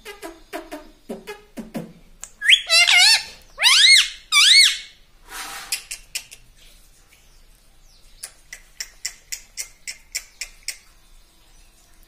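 Indian ringneck parakeet vocalizing: a few low mumbled, speech-like syllables, then about two to five seconds in a series of loud rising, looping whistled squawks. It is followed later by a quick run of sharp clicks, about five a second.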